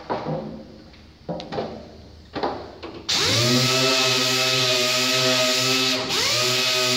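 A few knocks and clatter, then about three seconds in a pneumatic sander starts and comes up to speed, running at a steady high whine as it works the bare metal of a car's hood. Near the end its speed dips briefly and picks up again.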